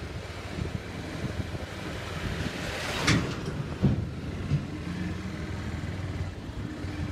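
Motorcycle running on the road with wind on the microphone, and a sudden loud clatter about three seconds in followed by a smaller knock.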